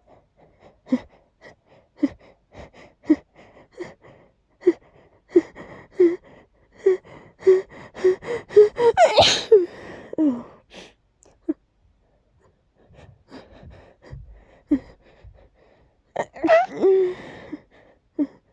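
A person's stuck sneeze: short pitched gasping inhales, about one a second, come closer together and build until a loud sneeze bursts out about nine seconds in. A second round of catching breaths and a shorter sneezy burst follows near the end.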